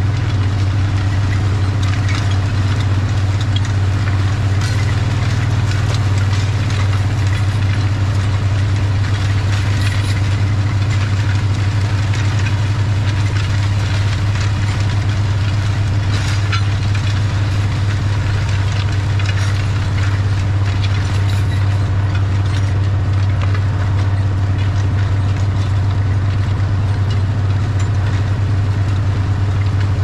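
International 1256 tractor's turbocharged six-cylinder diesel engine running steadily under load as it pulls a disc harrow, with the disc gangs rattling and clattering through dry soil.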